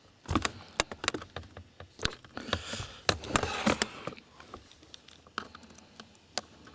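Irregular plastic clicks and taps from fingers pressing and prying at a Toshiba Satellite C850 laptop's keyboard and palm rest to work the keyboard loose, with a short rustle about halfway through. The clicks thin out over the last few seconds.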